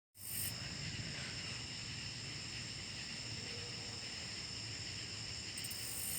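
Crickets chirping steadily in a high-pitched chorus, with short buzzy trills even higher at the very start and near the end.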